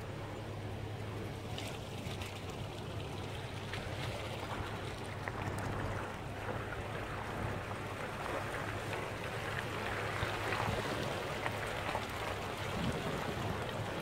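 A vehicle engine running with a steady low hum, under a rushing hiss that grows louder in the second half.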